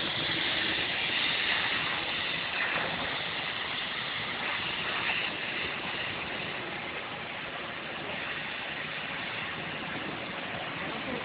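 Steady mechanical running noise of a CNC gantry V-groover (sheet metal slotting machine) at work, an even wash with no distinct strokes.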